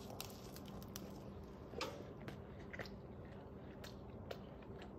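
Faint chewing: a man biting into and eating a small steamed-bun beef slider, with soft scattered mouth clicks.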